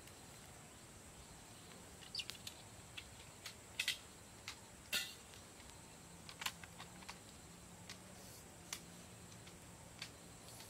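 Scattered sharp snaps and cracks of dry sticks being handled and broken, irregular and loudest about four and five seconds in, over a steady high hiss.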